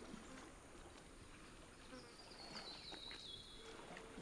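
Near silence: faint forest ambience with insects buzzing, and a faint high whistle stepping down in pitch about two seconds in.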